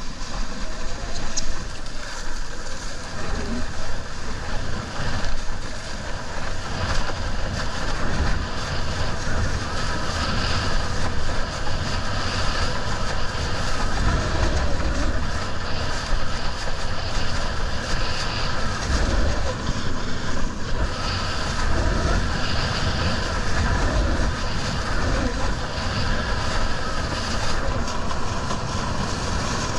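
Wind buffeting the microphone, with a gusty low rumble, over the steady rush of water under a windsurf board planing across the sea.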